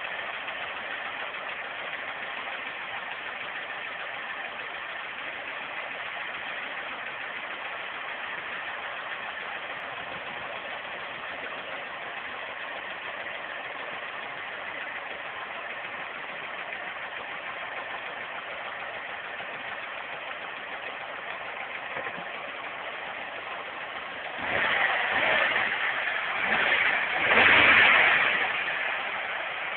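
Nissan Micra K11's 1.3-litre four-cylinder petrol engine idling steadily, then revved up three times in quick succession near the end. The engine has worn piston rings.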